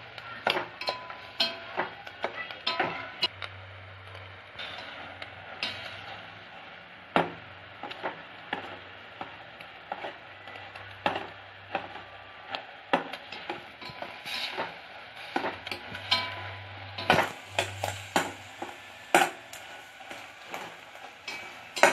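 A spoon stirring and scraping junnu curds around a steel pot, with frequent irregular clinks and knocks against the pot over the steady sizzle of the bubbling sugar syrup as the sugar melts into the curds.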